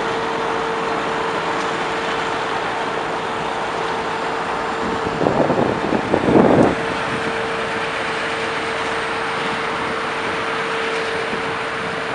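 Engines of snow-removal vehicles running: a steady rumble with a constant hum under it. A louder, rough surge of engine noise comes about five to seven seconds in.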